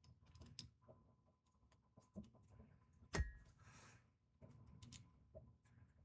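Quiet handling of small parts and tools: scattered faint clicks and taps, with one sharper click about three seconds in that rings briefly.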